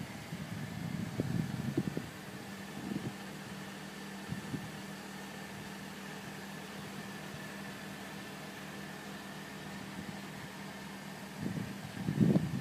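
A steady mechanical hum with a low drone and a faint higher whine. Low, irregular rumbling on the microphone in the first two seconds and again near the end.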